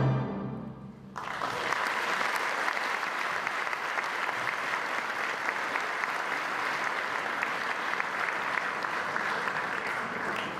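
The orchestra's final chord dies away, and about a second in an audience bursts into steady, dense applause.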